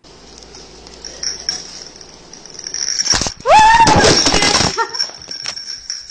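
A loud, high-pitched drawn-out cry lasting about a second, starting about three and a half seconds in, rising and then holding its pitch over a noisy scuffle. A faint steady high whine runs underneath.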